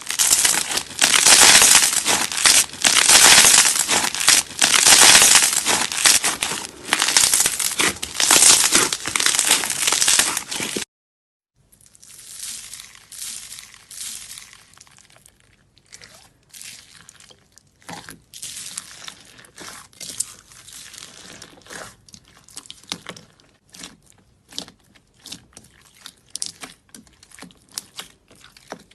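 Crunchy slime being squeezed and pressed, a loud dense crackling for about eleven seconds. After a brief break it comes back as quieter, scattered crackles and clicks.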